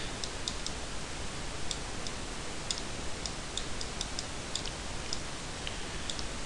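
Scattered light clicks of a computer mouse and keyboard at an irregular pace, over a steady hiss from the microphone.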